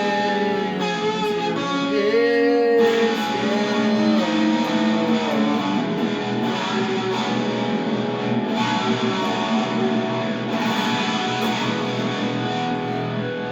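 Electric guitar playing an instrumental passage: held, ringing notes that bend in pitch about two to three seconds in, then fuller strummed chords.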